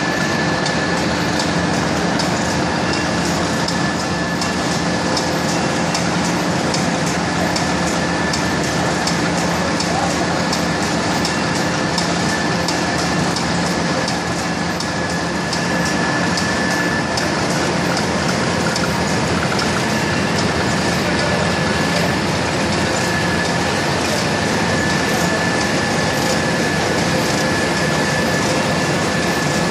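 Labelmen PW-260R label printing press running steadily: a continuous mechanical din with fast, fine ticking, a low hum and a high whine.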